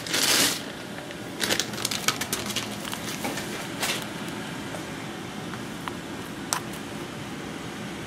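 Handling noise from unboxing: a short rustle of packaging, then a few light rustles and clicks as a coiled cable is lifted out of its box, over a steady low room hum.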